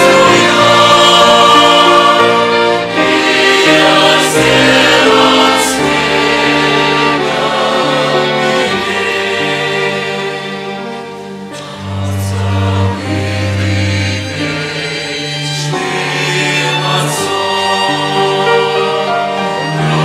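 Violins playing a hymn in long held notes, with a choir singing the words.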